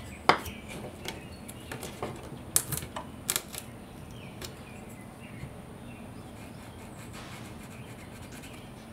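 Light taps and scratches of a pencil and a small hand tool on a wooden board: one sharp click about a third of a second in, a few more short clicks between about two and a half and three and a half seconds in, and faint scratching otherwise.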